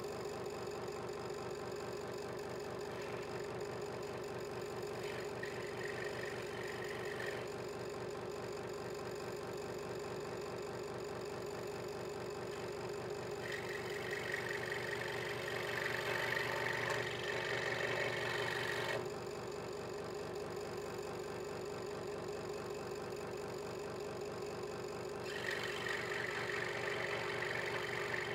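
Hegner Multicut 2S scroll saw running with a steady hum as its blade saws through a small piece of wood. The cutting rasp comes and goes, loudest about halfway through and again near the end.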